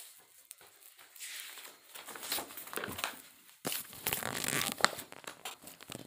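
Rustling and crinkling in irregular bursts, with many sharp crackles, loudest around the middle.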